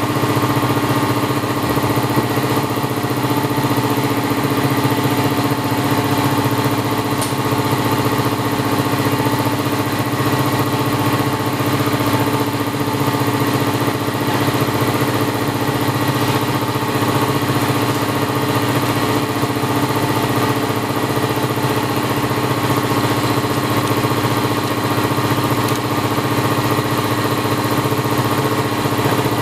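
Electric piston air compressor running steadily, its pump filling the tank with air.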